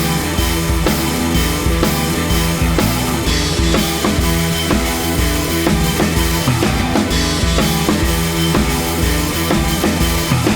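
Background music: a rock-style track with a steady drum-kit beat of bass drum and snare under sustained instruments.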